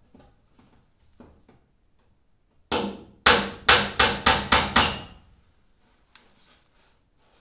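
Claw hammer driving a finish nail into plywood: about seven sharp blows in quick succession, starting a little under three seconds in and coming faster toward the end. The last blow leaves a brief metallic ring. A few faint knocks come before the blows.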